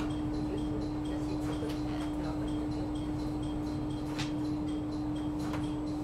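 Sightseeing train moving slowly out of a station, heard from inside the carriage: a steady hum over a low rumble, with faint regular high ticking and a few light clicks.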